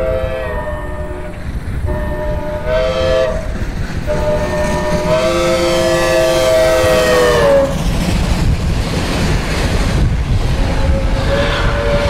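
Synthesized recreation of a Southern Pacific six-chime steam locomotive whistle sounding its chord in blasts: a short one about two seconds in, then a longer one whose pitch drops near its end as it passes (Doppler effect). A fainter, lower whistle tone returns near the end, over a steady low train rumble throughout.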